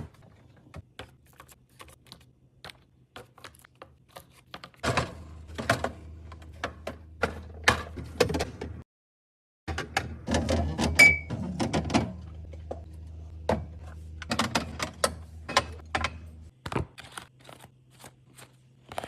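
Household objects being handled and set down: an irregular run of clicks, taps and light knocks, with a low steady hum under much of it. The sound cuts to dead silence for about a second near the middle.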